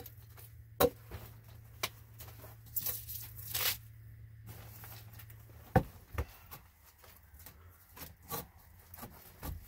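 Sharp knocks and taps at irregular intervals, with a rustling scrape about three seconds in, from hand work on the log posts and tarp wall of a small shelter.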